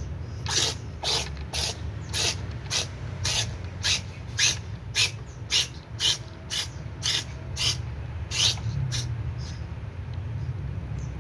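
Cat chewing dry food: short crunches about twice a second, stopping about nine seconds in, over a steady low hum.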